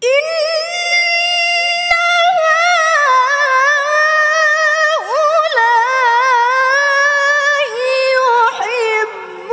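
A woman reciting the Qur'an in the melodic tilawah style: one long unbroken phrase that starts with a quick rise to a high held note, then steps down and winds through fast wavering ornaments, breaking off shortly before the end.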